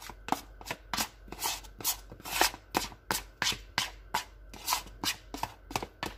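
A kitchen utensil scraping and tapping mashed banana out of a bowl into a stainless steel mixer bowl: a quick, irregular run of clicks and short scrapes, about three a second.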